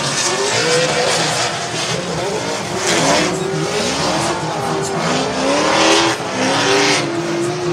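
Drift cars in a tandem run, engines revving hard with pitches climbing and dropping over and over as they launch and slide through the corner, over a steady hiss of spinning, squealing tyres.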